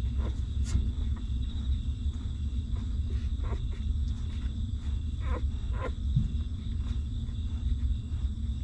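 Newborn puppies suckling at their mother's teats: a few soft, wet smacking clicks over a steady low rumble.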